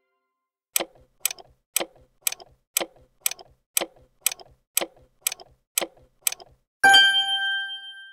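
Clock ticking sound effect, about two ticks a second for some five seconds, then a single bright bell-like ding that rings out.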